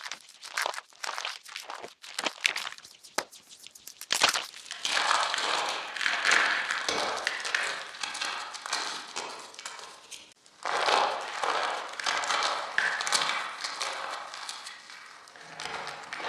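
Dry chalk blocks being crushed and crumbled: first a run of separate sharp snaps and crackles, then about four seconds in a dense, continuous crunching that breaks off briefly around ten seconds in and resumes, tapering off near the end.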